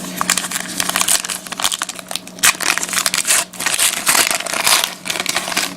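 A trading-card pack wrapper crinkling and tearing as a new pack is opened and handled, an irregular crackling rustle with sharp peaks throughout.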